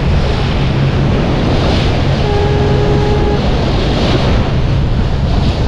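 Water rushing and spraying along a speedboat's hull at speed, with heavy wind buffeting on the microphone and a low rumble beneath. A faint steady tone sounds for about a second midway.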